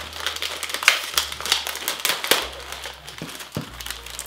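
Plastic Oreo cookie packet crinkling and crackling as it is handled and torn open: a quick, irregular run of sharp crackles.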